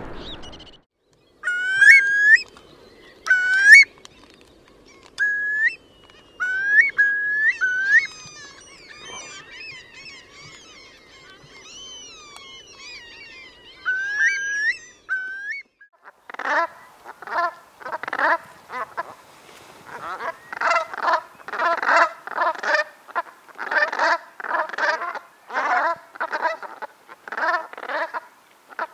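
Eurasian curlews giving short rising whistled calls among fainter high chatter from other waders, over a faint low wash of sea. From about halfway, brent geese call in a dense run of low, harsh honks, about two a second.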